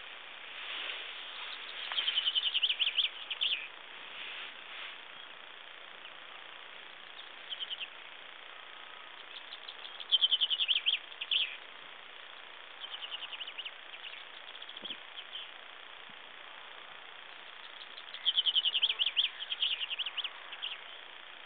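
Chaffinch song, three times about eight seconds apart: each phrase is a quick run of repeated notes lasting about two seconds and ending in a few separate notes. Fainter, shorter bird phrases sound between them.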